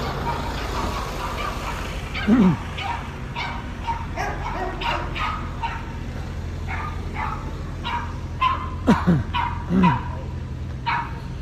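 A dog yipping and whining in a string of short calls, with a few falling whimpers, over a steady low engine hum.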